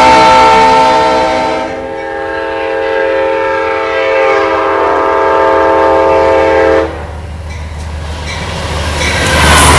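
Diesel locomotive air horns. A CSX freight locomotive's horn chord sounds for the first two seconds. Then an Amtrak GE Genesis P32AC-DM's horn chord is held for about five seconds and cuts off, followed by the growing rumble and wheel clatter of the approaching train.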